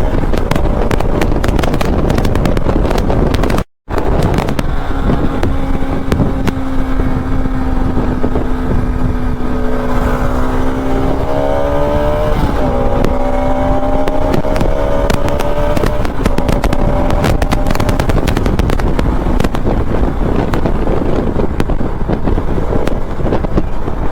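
Motorcycle engine running on the road under heavy wind noise. Its note holds steady, rises and then drops sharply about halfway through.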